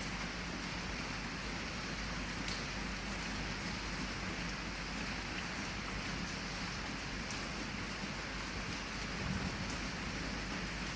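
Heavy rain falling steadily, an even hiss with a few faint sharper drop taps.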